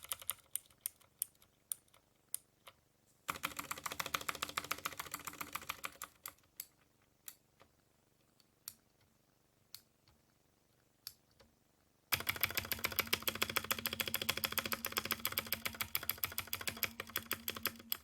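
Typing on a mechanical keyboard with Outemu Teal clicky switches, heavy Cherry MX Green clones, under PBT keycaps. Single key clicks alternate with two runs of fast continuous typing, about three seconds in and again from about twelve seconds. The switches sound slightly muted but rattly.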